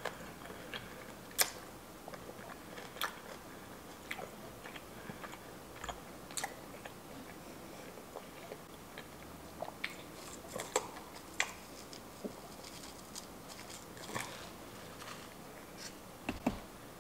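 Close-miked chewing of a mouthful of halo-halo, with soft, irregular mouth clicks and smacks and a few sharper ticks.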